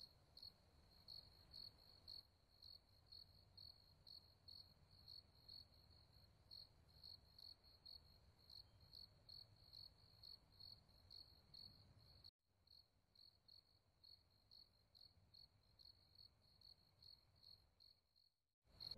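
Faint cricket chirping steadily, about two chirps a second, with a short break about twelve seconds in.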